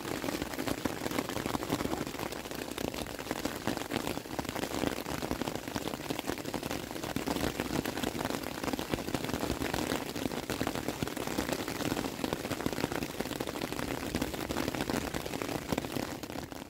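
Heavy rain falling steadily, a dense patter of drops with no let-up, cutting off suddenly at the end.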